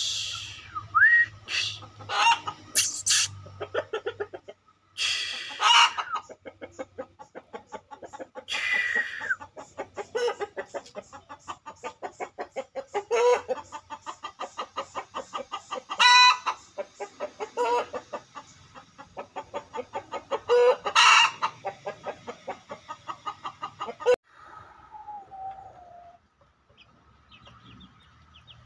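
Aseel chickens clucking in a rapid, steady series of about four to five clucks a second, broken by several louder calls. The clucking stops abruptly about four seconds before the end.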